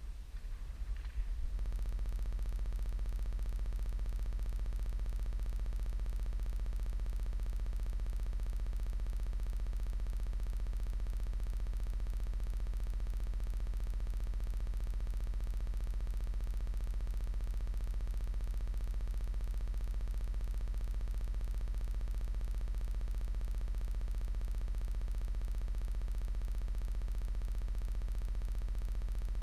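A steady, unchanging electronic hum with a faint buzz above it, a recording artefact of the camera's audio rather than any sound of the shoot. It cuts in about a second and a half in, replacing brief outdoor field sound.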